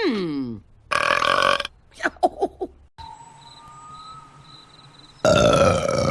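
Female cartoon characters burping: a falling-pitch sound right at the start, a loud burp about a second in, and another long, loud burp beginning near the end, with faint steady tones between them.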